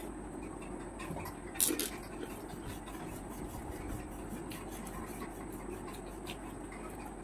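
A crisp, water-filled panipuri shell crunched in a bite about a second and a half in, followed by faint, wet chewing.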